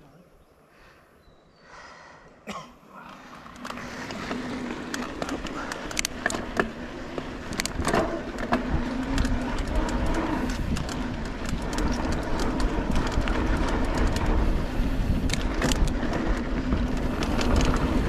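Polygon Siskiu mountain bike riding down a dirt singletrack: tyres rolling on dirt with a rumble, and rattling clicks and knocks from the bike over bumps. The ride noise builds up after a quiet start about three seconds in.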